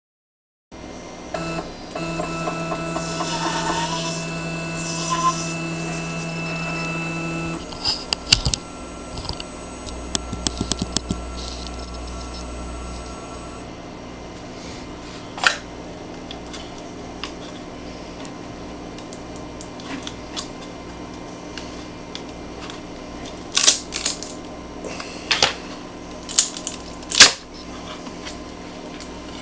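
An Evolution 3D printer's stepper motors whine in several steady tones for several seconds, then fall silent. Sharp clicks and knocks follow, loudest near the end, as the finished plastic C-clamp is handled and worked off the print bed.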